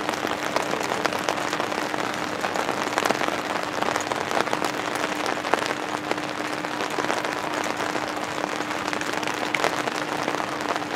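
Rain falling close to the microphone: a steady, dense crackle of many small drop ticks, with a faint steady hum under it.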